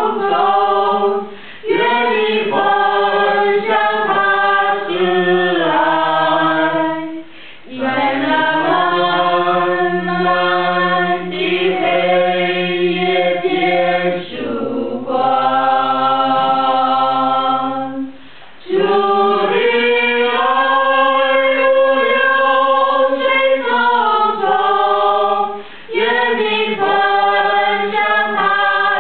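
A choir singing a cappella in long, held phrases, with a few brief pauses between phrases.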